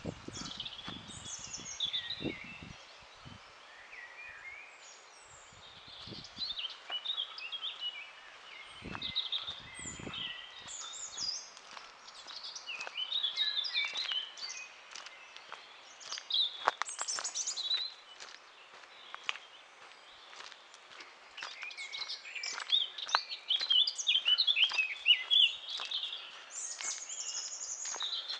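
Several songbirds singing in woodland: many short chirps and trills overlapping throughout, busiest and loudest in the last third. A few low thumps in the first ten seconds.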